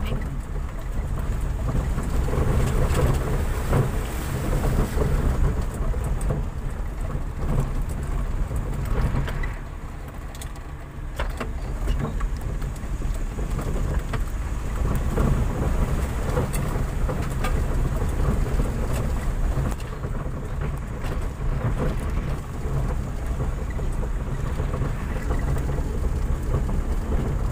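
Car driving slowly over a rough, rocky dirt road, heard from inside the cabin: a steady low rumble of engine and tyres, with scattered knocks and clicks as the car jolts over the bumps.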